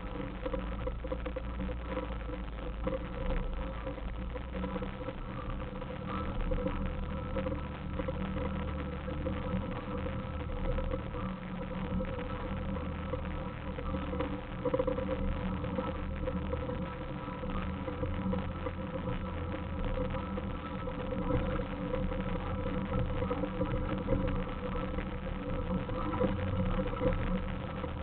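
Suzuki Samurai's engine running at steady low revs under load as it crawls up a steep rocky trail, heard from the hood, with frequent short knocks and clicks from the rough ground.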